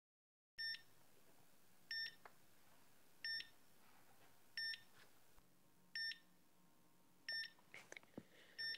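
Hospital heart monitor beeping steadily: short electronic beeps about every 1.3 seconds.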